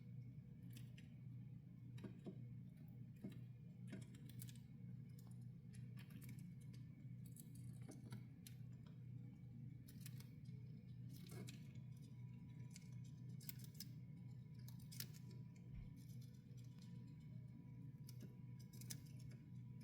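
Hamster chewing bok choy: faint, irregular crisp crunching clicks over a steady low hum.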